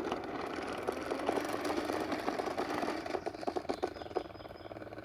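Toy bubble lawnmower being pushed along: its small motor whirs steadily while the plastic mechanism clicks and rattles rapidly.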